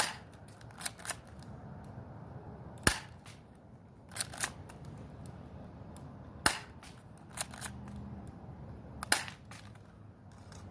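Airsoft 1911 pistol firing four single shots, each a sharp pop about three seconds apart, with quieter double clicks between the shots.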